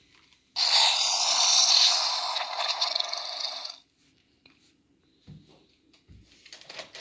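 Electronic roar from a toy dinosaur's built-in speaker, a harsh, hissing roar with no bass, lasting about three seconds. It starts abruptly about half a second in and cuts off suddenly. A few faint knocks from handling the plastic toy follow.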